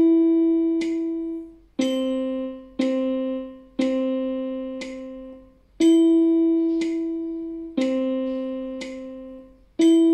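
Yamaha electronic keyboard playing a slow two-note exercise on E and C in quarter and half notes, each note struck and left to die away, over a metronome ticking about once a second. It opens on a held E, moves to three Cs with the last one held, then a held E, a held C, and a new E near the end.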